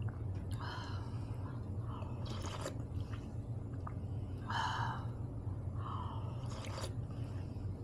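Eating sounds: chewing a mouthful of food, with short wet mouth noises about every two seconds over a steady low hum.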